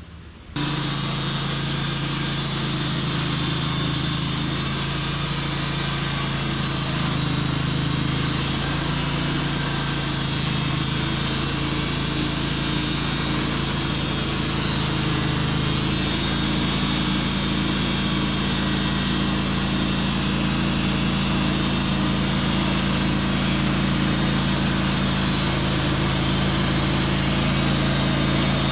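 Sawmill engine running steadily under power, a constant low hum with a broad whirring on top, as the mill works the spruce log.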